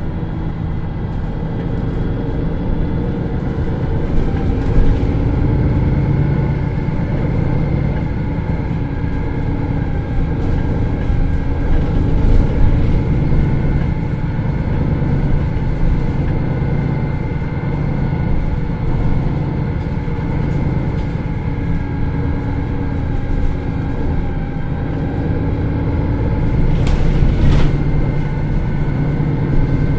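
MAN NL323 Lions City city bus running in service, its diesel engine droning steadily, with the engine note rising and falling slowly twice as the bus changes speed. A brief hiss comes near the end.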